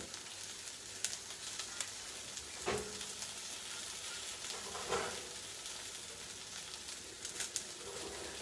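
Baby aubergines and spring onions sizzling in olive oil in a stainless steel sauté pan over high heat: a steady frying hiss, broken by a few light knocks and pops.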